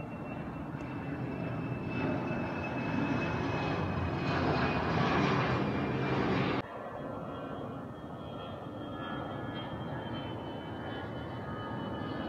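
Jet airliner flying overhead: a steady engine rumble with a high whine that slowly falls in pitch and grows louder, cut off sharply about six and a half seconds in. After the cut, another aircraft's engines continue more quietly with a faint high whine.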